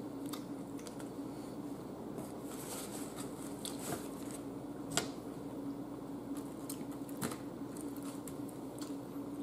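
Close-miked eating: a person chewing a mouthful of spaghetti, with wet mouth sounds and scattered small clicks, the sharpest about five seconds in. A steady low hum runs underneath.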